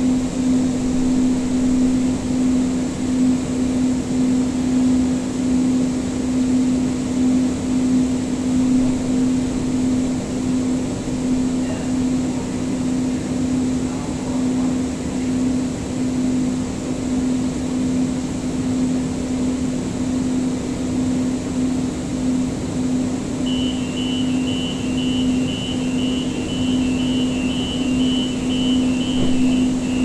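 Siemens S200 light-rail car standing still, heard from inside: a steady electrical hum from its onboard equipment. About 23 seconds in, a fast run of short high beeps starts, about two a second, and goes on for some seven seconds.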